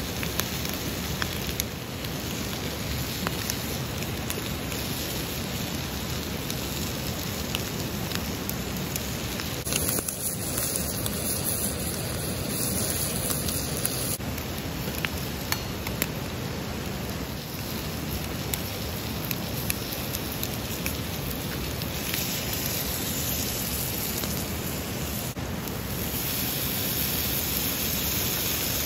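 Bacon and eggs sizzling in a small cast-iron frying pan, a steady frying hiss with scattered small pops and crackles.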